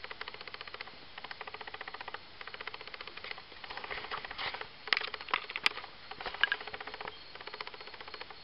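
A night-calling animal gives a fast, even, pulsed rattling call in repeated bursts of about one to two seconds with short breaks. The recordist takes it for a male spotted crake but wants the identification confirmed. A few louder, sharp clicks break in between about four and seven seconds in.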